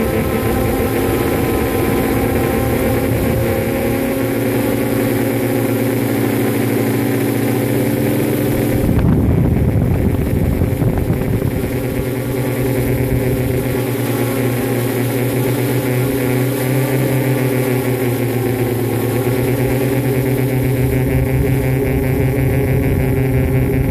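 Multirotor FPV drone's motors and propellers humming in flight: a steady pitched hum of several tones that drift up and down as the throttle shifts, with a brief surge about nine seconds in.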